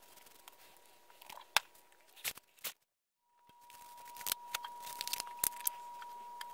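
Small handling noises from leather dyeing: a dye dauber dabbing and rubbing on leather pieces over newspaper, with a few sharp clicks. After a brief dropout there are denser clicks and rustles of a bottle being handled. A faint steady high tone runs underneath and is louder after the dropout.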